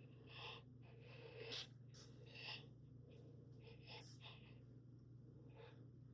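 Near silence: room tone with a steady low hum and a few faint, brief noises.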